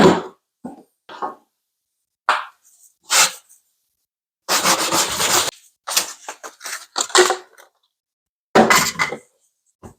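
A string of short clatters and knocks from hard objects being handled, with a longer rattling stretch about halfway through.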